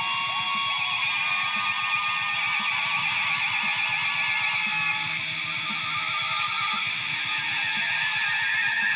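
Electric guitar played through a multi-effects unit: a held note with a warbling pitch, about four wobbles a second, over a low fast pulsing, settling after about five seconds into steadier sustained tones while the effect knob is turned.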